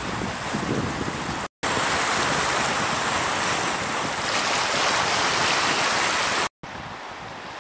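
Sea waves washing and breaking, with wind on the microphone. Two short cuts to silence, about 1.5 s and 6.5 s in, split it into three stretches, and the middle one is the loudest.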